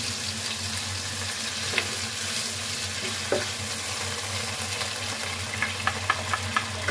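Chicken and bell pepper pieces sizzling in a hot frying pan while a sauce is poured in. A quick run of light taps near the end as a wooden spatula scrapes the sauce out of a bowl into the pan.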